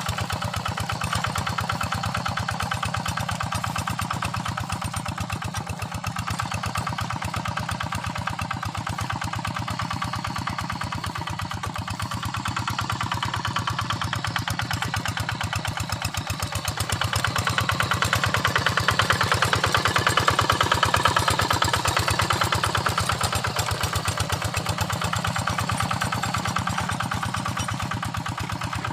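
Quick Impala two-wheel hand tractor's single-cylinder engine running steadily while working a flooded paddy field. It grows louder for several seconds past the middle, then settles back.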